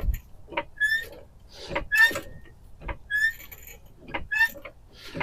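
Car jack being worked to lift the car, giving a short, slightly rising squeak with each stroke, roughly once a second.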